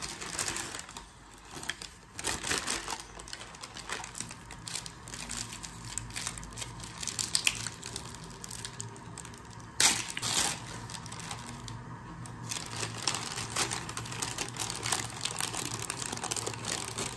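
Paper bakery bags rustling and crinkling in irregular handling strokes as pastries are unwrapped: stiff brown kraft paper, then thin white bakery paper. One louder, sharp sound about ten seconds in.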